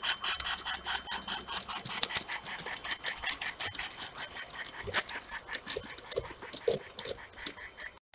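G scale model train, a Climax locomotive and its string of freight cars, rolling past with a quick, uneven clicking and rattling of wheels over the track.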